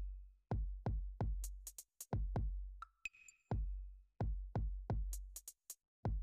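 Background music with an electronic drum-machine beat: deep kick-drum hits, sharp high clicks and a few bell-like pings in a repeating pattern.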